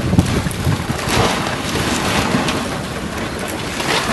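Wind buffeting the microphone over the steady hiss of choppy water and spray around a boat on open water.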